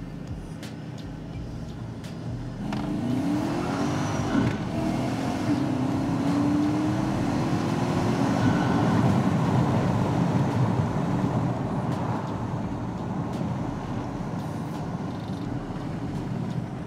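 Supercharged 5.6-litre V8 of a 2004 Nissan Titan accelerating, heard from inside the cab, with the whine of its Vortech V2 centrifugal supercharger. The engine note picks up and rises in pitch about three seconds in, is loudest around the middle, then eases off to a cruise.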